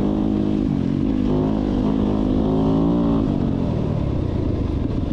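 Off-road motorcycle engine running under way, its pitch dropping and rising a few times with the throttle.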